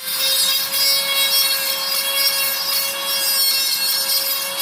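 Small high-speed electric rotary tool running at a steady whine while grinding against a hard surface, with an uneven rasping scrape over the top.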